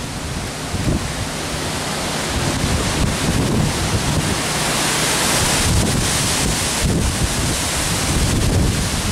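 Strong gusting wind from Hurricane Irma tossing trees, with heavy wind buffeting on the microphone. The wind swells about a third of the way in and stays strong.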